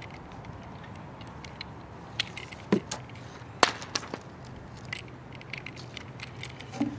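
Handling noise from a coil of stiff LMR-600 coax cable with a metal connector: a few scattered sharp clicks and clinks, the loudest about three and a half seconds in.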